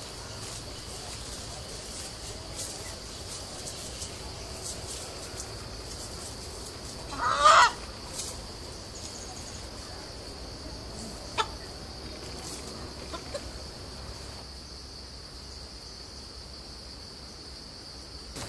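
A rooster gives one short, loud squawk about seven seconds in while it is being handled. A steady high-pitched drone runs underneath.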